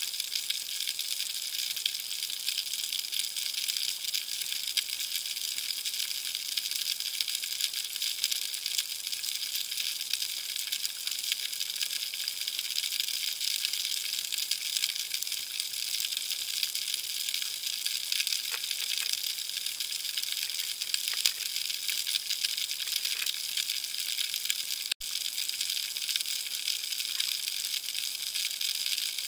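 Steady underwater crackling hiss, the dense crackle of snapping shrimp, recorded through an underwater camera in the surf, with a momentary break late on.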